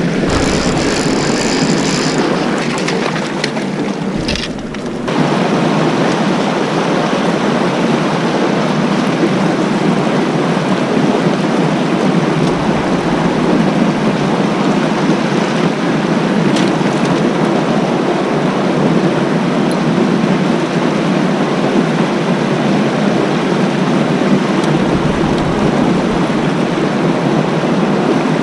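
Rushing mountain stream, white water pouring over rocks and small cascades, as a loud, steady roar of water.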